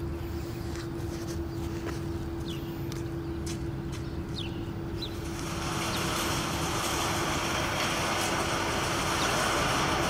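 Wrought-iron sliding gate rolling shut along its track, a rough mechanical rattle that builds from about halfway through, over a steady hum.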